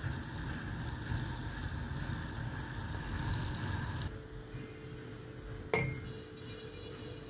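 Steady hiss of a gas burner under a small steel saucepan of water coming to the boil, which stops abruptly about four seconds in. Near the end comes a single sharp clink of the metal pan against a glass mug as hot water is poured into it.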